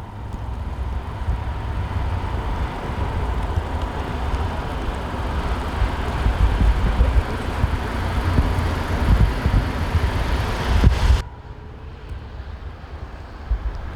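Wind buffeting the microphone outdoors over a steady rumble of city street noise during a snowstorm. The sound cuts off sharply about eleven seconds in and gives way to quieter wind noise.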